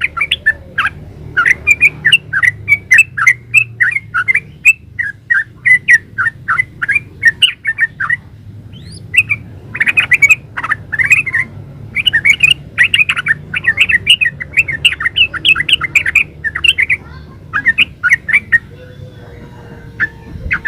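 Sooty-headed bulbul (trucukan) singing fast runs of short chirping notes, with a short break about eight seconds in and another near the end.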